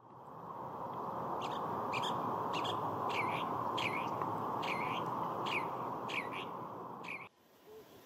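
California thrasher singing a string of short, clear notes, about nine of them at an even pace, some dipping and rising in pitch. A steady rushing noise lies beneath them, and both cut off abruptly near the end.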